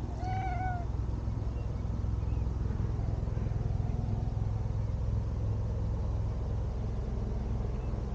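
A cat gives one short meow about half a second in, with a slight rise and fall in pitch, over a steady low rumble that runs throughout.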